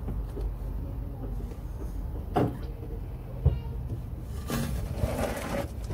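Hand oil syringe being worked, its plunger sliding and squelching as gear oil is pushed through the hose into the manual gearbox, with two knocks before a longer squelching hiss near the end.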